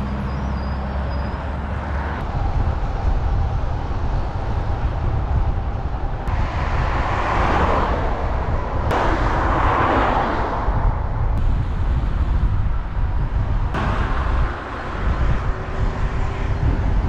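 Wind rumbling on the microphone while moving along a road, with traffic noise; two vehicles swell past about seven and ten seconds in.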